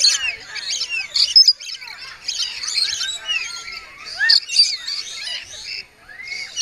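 A flock of lorikeets chattering and screeching, many shrill calls overlapping, with a brief lull near the end.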